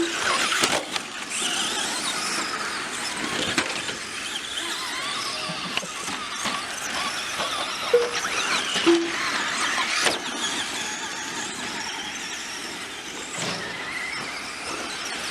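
Several 2wd brushed-motor RC cars racing, their electric motors and gears whining up and down in pitch as they speed up and slow down, with a few short beeps.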